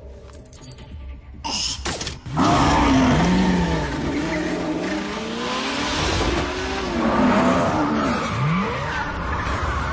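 Car tyres skidding and squealing while the engine revs up and down, in repeated rising and falling sweeps. It starts quietly, and after a couple of sharp knocks it turns loud about two and a half seconds in.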